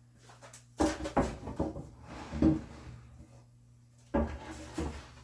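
Wooden knocks and clatters of tools and a board being set down and picked up on a wooden workbench: a cluster of sharp knocks about a second in, and another near the end.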